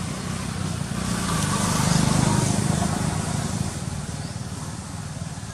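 A motor vehicle passing by, its engine rumble and road noise swelling to a peak about two seconds in and then fading away.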